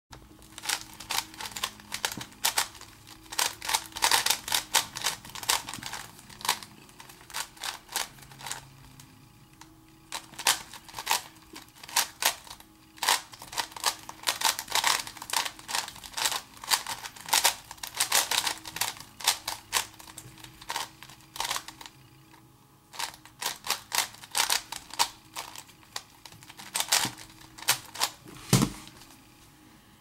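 4x4x4 Rubik's cube being turned fast in a speedsolve: rapid plastic clicking and clacking of the layers, in quick runs broken by short pauses. One heavier thump sounds near the end.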